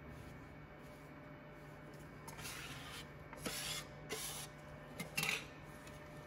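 A brush and plastic card sweeping metal powder across the build platform of a 3D metal printer's chamber: about four short swishing strokes starting about two seconds in, over the machine's low steady hum.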